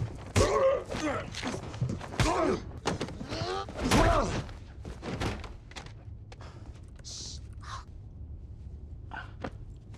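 Two men fighting at close quarters: wordless grunts and strained groans mixed with thuds and knocks of blows and bodies hitting seats, busiest in the first half, then thinning to a few scattered knocks.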